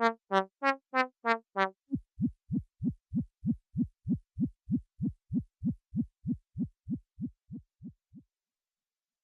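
Behringer Crave analog synthesizer playing a sequenced note about three times a second. Just under two seconds in it changes to a low, heartbeat-like thump that falls in pitch on each hit, at the same pace. The thumps fade out and stop about eight seconds in.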